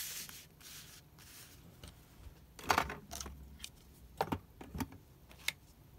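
Card-stock card fronts being slid and set down on a craft table: a rustle of paper, then a few short taps and clicks spread out over several seconds.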